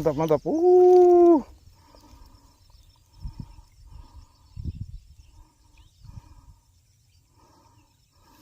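A man's voice calling out a long, drawn-out "mantap" in the first second and a half, then a few faint low thumps and small clicks.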